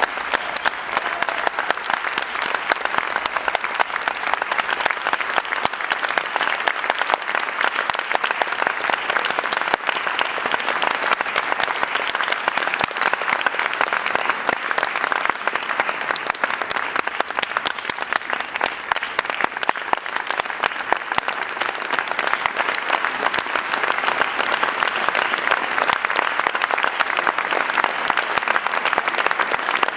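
A large audience applauding in a concert hall, steady dense clapping.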